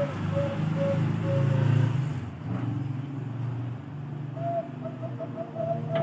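Bangkok-line zebra dove (perkutut) cooing: a quick series of short, even notes, about three a second, that trails off about a second and a half in, then a new phrase of higher notes starting near the end. A low engine hum runs underneath, loudest in the first two seconds.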